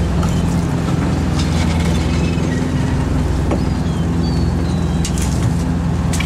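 Small fishing boat's engine and net hauler running with a steady drone while a gill net is hauled aboard, with scattered light clicks and knocks of the net and gear.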